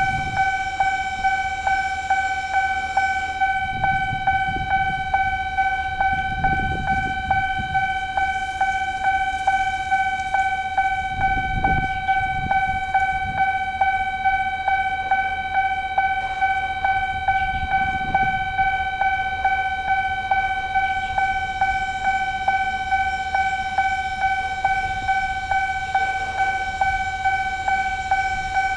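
Railway level crossing warning bell ringing rapidly and steadily, about three dings a second, signalling an approaching train. A few low rumbles swell and fade under it.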